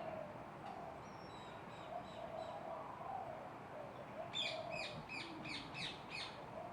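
Birds calling: faint high chirps, then about halfway through a run of around eight quick, falling chirping notes, over a low background murmur.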